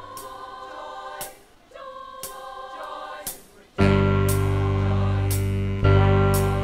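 School choir singing with accompaniment. Softer at first, with a few sharp taps, then about four seconds in a loud, full accompaniment with deep, sustained bass notes comes in under the voices.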